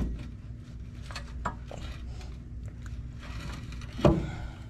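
Metal clunks and light clicks of a tubular step bar being worked loose from under a 1992 Ford Bronco: a heavy clunk at the start, a few small clicks, then another clunk about four seconds in.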